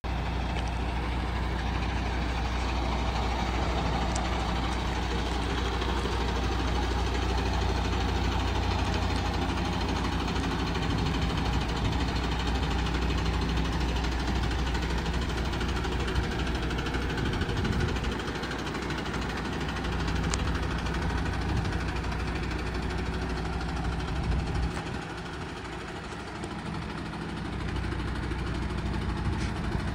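Diesel engine of a MAN TGX 26.480 tractor unit, a 12.4-litre straight-six, idling steadily, its low rumble dropping back twice for a couple of seconds.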